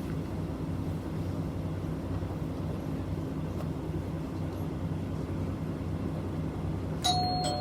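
City bus engine running steadily, heard from inside the cabin. Near the end a short electronic tone sounds suddenly.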